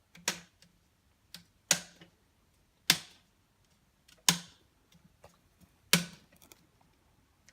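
Thin plastic laptop screen bezel snapping onto the lid, its clips clicking into place one at a time as it is pressed down around the edge: five sharp snaps, one every second and a half or so, with a few fainter clicks between.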